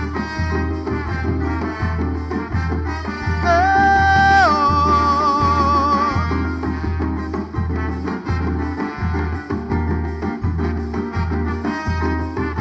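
Live band playing an instrumental passage of a Maranhão bumba-meu-boi toada: a steady low beat, with a lead line that holds a long note about three and a half seconds in, then drops and wavers for a couple of seconds.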